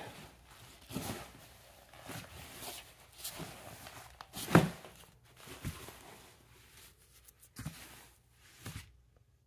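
Nylon hockey pants being handled and turned over: scattered fabric rustles and soft knocks, with one sharper thump about four and a half seconds in.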